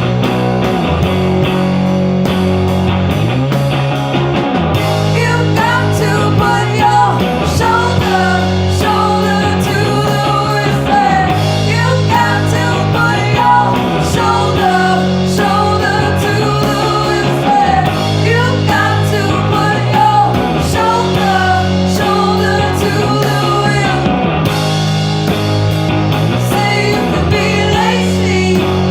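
Rock music soundtrack in an instrumental stretch: a lead guitar line with bending notes over a repeating bass line.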